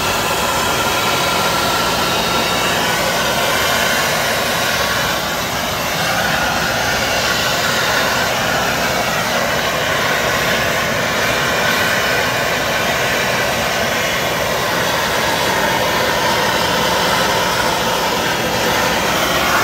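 Twin-nozzle MAP gas torch burning with a steady hiss while a copper pipe joint is brazed.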